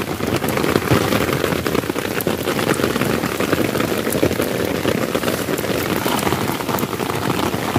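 Heavy rain falling, a loud, steady, dense patter of drops.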